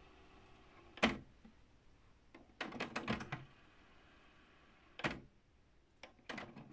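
Mechanical clicks and clunks from a Technics RS-TR155 double cassette deck's transport as its keys are worked with the tape stopped. There is a single clunk about a second in, a quick run of clicks around three seconds, another clunk near five seconds, and a few more clicks near the end as play is pressed.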